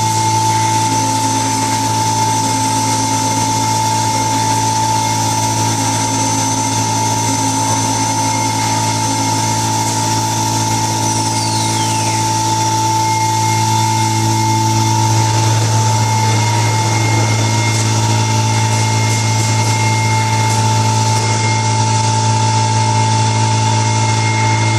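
CNC router running: a steady machine hum with a high spindle whine that drops in pitch about halfway through, as the spindle slows.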